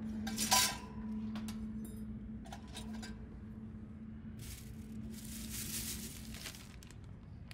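Camp cooking gear being handled by a grill: a sharp metallic clink about half a second in and a few lighter clicks, then crinkly rustling of a plastic bag in the second half, over a faint steady hum.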